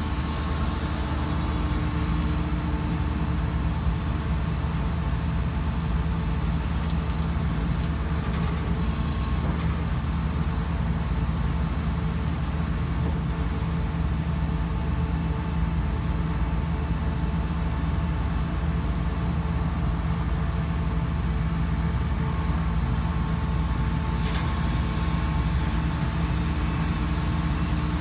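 Putzmeister Sika PM 500-PC shotcrete machine's engine running steadily at an even pitch.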